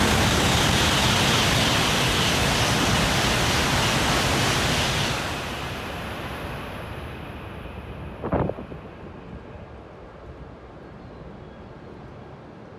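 Shinkansen bullet train passing at high speed: a loud, steady rush of air and running noise for about five seconds, which then fades away. About eight seconds in, a single short, sharp burst of sound.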